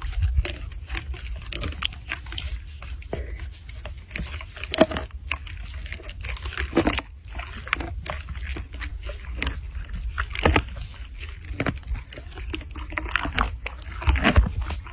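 An animal eating: irregular crunching and chewing clicks.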